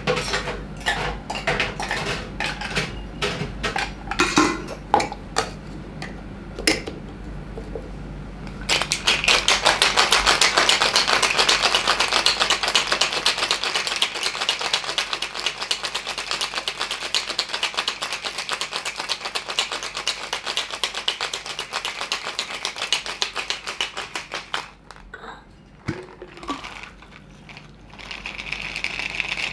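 Ice being shaken hard in a metal cocktail shaker: a fast, even rattle of ice against the tin for about fifteen seconds, after scattered clinks and knocks as the ice and tins are handled. Near the end the shaker is knocked open and the chilled sidecar pours into a glass.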